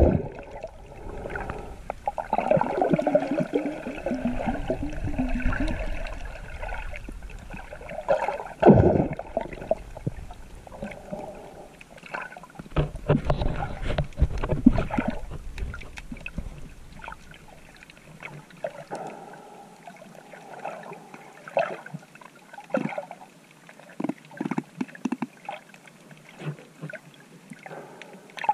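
Muffled water sloshing and gurgling heard through a GoPro's waterproof housing while swimming, with scattered clicks and a few louder gushes.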